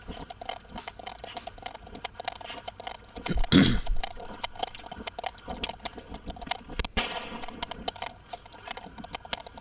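Police body-camera audio of an officer running on pavement: an irregular string of sharp knocks and rattles from footfalls and jostled duty gear, with one louder burst about three and a half seconds in and a sharp crack about seven seconds in.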